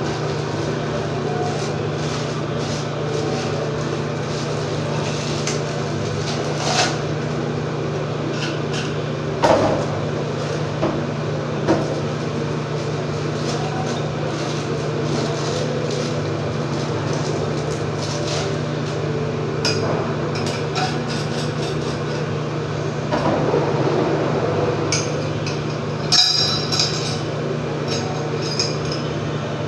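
A few scattered knocks and metallic clinks of tools and fittings being handled during plumbing fixture installation, over a steady low hum.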